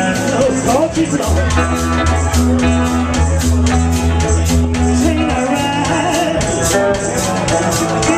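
Small live band playing: guitars, a bass guitar holding low notes, and a drum kit keeping a steady cymbal beat, with a man singing.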